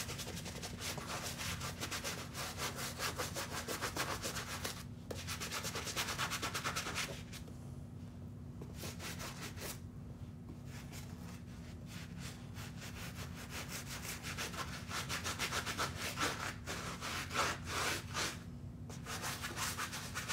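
Wet bristle brush scrubbing the side of a Vans sneaker in rapid back-and-forth strokes, with a short break about five seconds in and a quieter stretch a few seconds later before the scrubbing picks up again.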